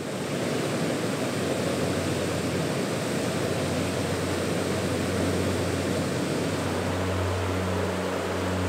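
Steady rush of falling and flowing water from a waterfall and river, fading in at the start. A low steady hum comes in near the end.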